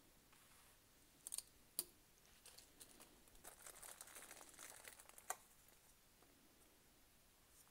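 A small zip-lock plastic bag crinkling as it is handled and opened, about midway. Before it there are a few sharp clicks, and another click after it, from the charger's cables and clip leads being handled.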